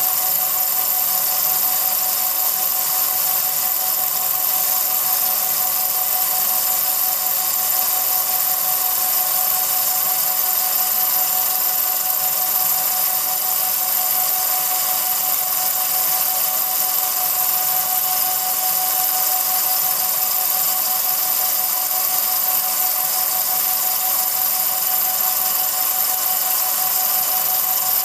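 Film projector running: a steady mechanical whir with several constant high-pitched tones, unchanging in level.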